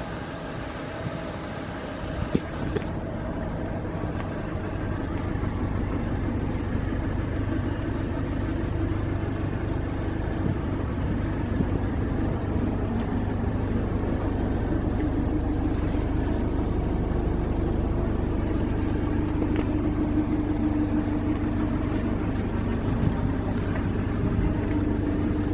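Nissan NV350 Caravan's 2.5-litre diesel engine running with a steady low drone.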